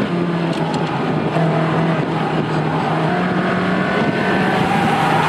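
Ferrari 360 Spider's 3.6-litre V8 running hard at high speed on a race track. Its note drops once right at the start, then holds and climbs slowly, with wind and road noise underneath.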